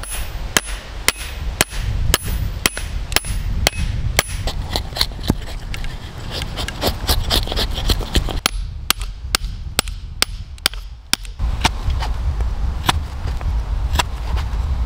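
Hammer blows on a steel dowel-making tube, driving a squared wooden stick down through it to shave it into a round dowel. The sharp strikes come about two a second with a short metallic ring, quickening in the middle.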